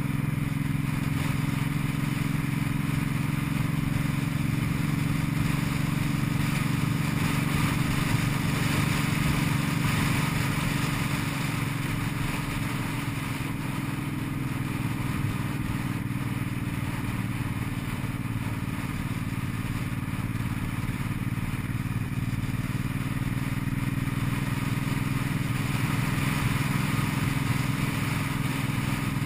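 Cruiser motorcycle engine running steadily at cruising speed, heard from on the bike, with wind and road noise over it.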